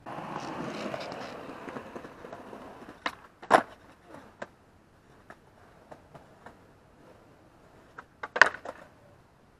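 Skateboard wheels rolling over smooth stone paving, then a light click and a loud clack as the board lands a fakie bigspin, and the rolling fades away. Near the end comes a quick cluster of sharp clacks.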